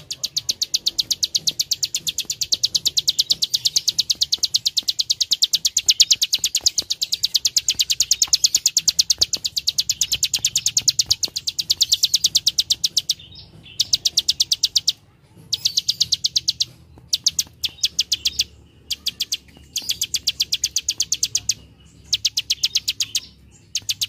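Plain prinia (prenjak sawah) giving its rapid 'klik klik' clicking call: a long unbroken run of sharp, high ticks, then shorter runs with brief pauses between them.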